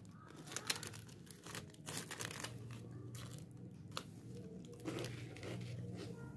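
Crinkly foil-lined plastic snack wrapper crackling irregularly as it is handled.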